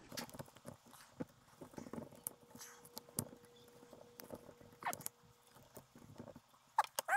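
Small, irregular clicks and taps of metal and plastic parts as the brush assembly and its screws are fitted into the back of a small alternator by hand. A faint steady tone comes in about a second in, and a short whine that rises and falls sounds just before the end.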